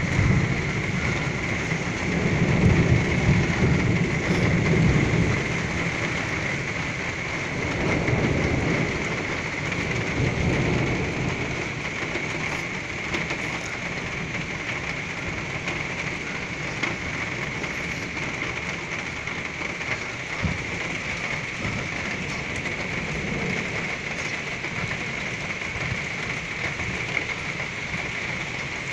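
Torrential rain pouring steadily in a thunderstorm. Thunder rolls in long, low rumbles, twice in the first ten seconds or so.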